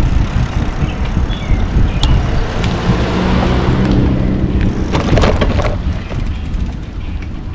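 Wind rumbling on the microphone of a moving bicycle, with a car passing about three seconds in and a few knocks and rattles shortly after.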